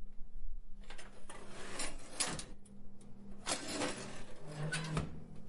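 Industrial metal hinge creaking and grating as it is swung, in two movements: one about a second in and another about three and a half seconds in, over a faint steady hum.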